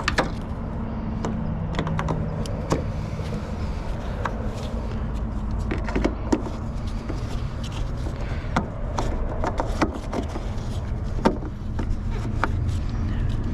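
Scattered light clicks and knocks of headlight wiring connectors being plugged in and a headlight assembly being fitted into place, over a steady low hum.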